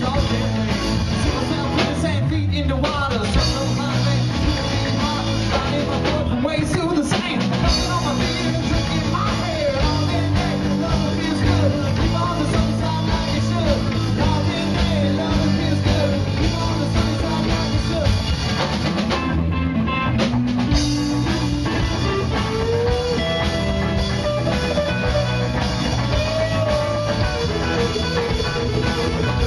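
Live rock band playing: drum kit, bass and electric guitars together at a steady loudness. In the last several seconds an electric guitar plays a lead line with bending, sliding notes over the band.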